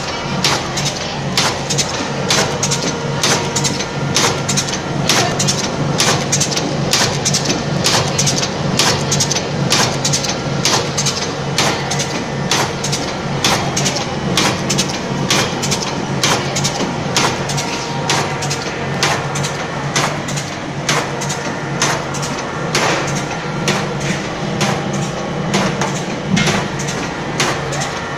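Automatic stuffed-pasta forming machine running as it makes casoncelli: a steady rhythm of clacks, a few a second, from its forming and cutting stroke, over a constant motor hum.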